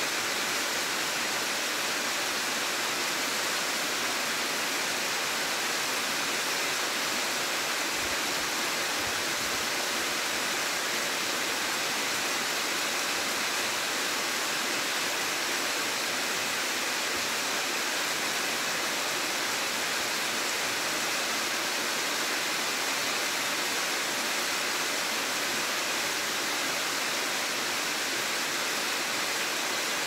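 Waterfall pouring down a rock ledge into a pool: a steady, even sound of falling water.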